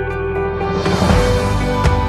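Instrumental background music: held tones, with a rushing swell building about a second in and a few sharp percussive strikes after it.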